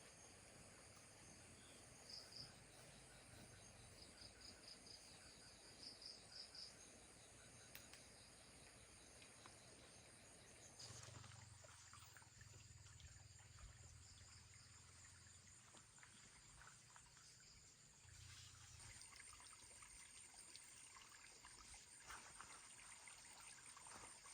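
Faint insect chirping in short pulsed trills over a steady high ringing, which gives way about eleven seconds in to a faint trickle of running water.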